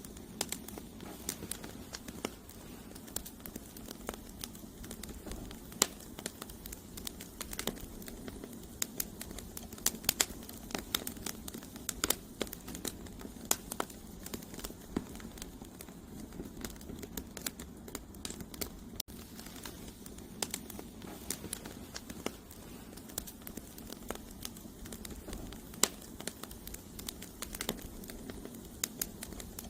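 Campfire of burning firewood crackling, with frequent irregular sharp pops and snaps over a steady low hiss of the flames.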